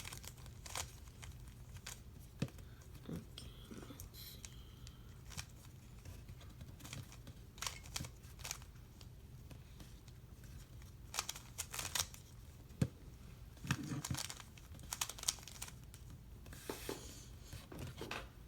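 A plastic Rubik's cube being turned by hand: irregular clicking and clacking as the layers are rotated, sometimes in quick runs of several turns.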